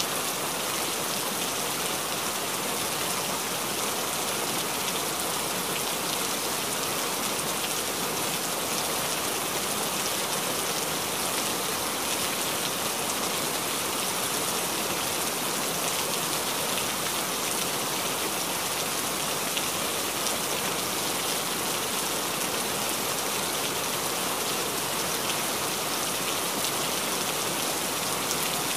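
A steady, even rain-like hiss that never changes in level, with no separate strokes or knocks standing out.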